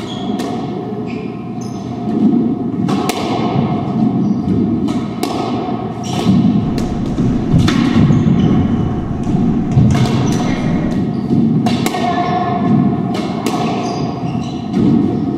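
Doubles squash rally: the ball cracks off racquets and the court walls in a run of sharp hits about once a second, with short squeaks of shoes on the wooden floor between them.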